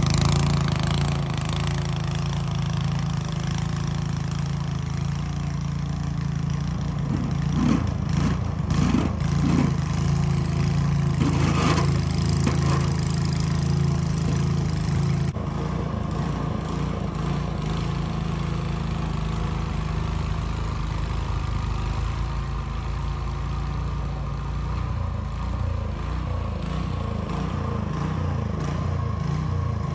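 Walk-behind gas snow blower engine running steadily under load as the machine throws snow, its note shifting slightly about halfway through.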